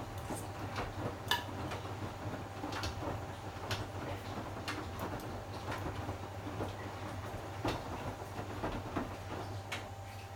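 Panasonic front-loading washing machine running: a steady motor hum with frequent irregular clicks and knocks.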